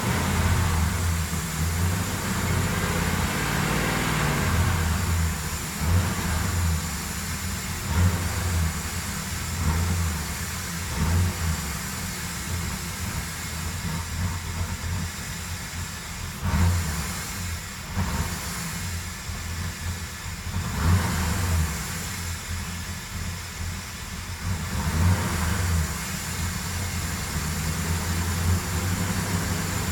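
2007 Ford Crown Victoria's 4.6-litre V8 running, its low rumble swelling and easing unevenly every second or two.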